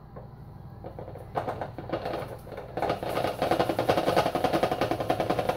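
Granulated sugar pouring from a measuring cup through a funnel into a plastic 2-liter bottle: a fast, dense rattle of grains that starts faintly about a second and a half in and grows louder about three seconds in.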